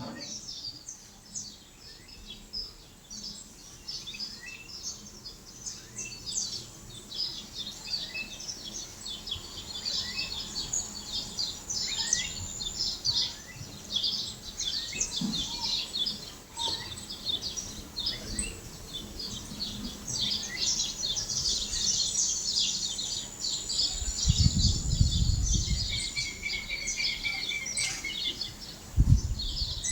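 A chorus of many birds chirping, with dense, overlapping short high chirps and calls throughout. A low rumble comes about two-thirds of the way through, and a short low thump near the end is the loudest moment.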